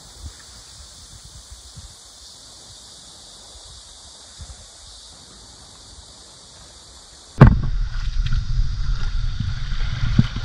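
Insects buzzing steadily at a high pitch over faint rustling. About seven seconds in it gives way suddenly to loud wind on the microphone, with small waves washing over sand and rocks.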